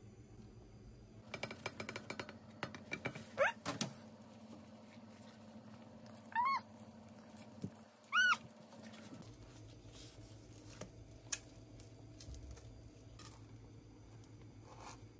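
Two short animal calls, each rising then falling in pitch, about two seconds apart, preceded by a run of light clicks and a quick rising squeak.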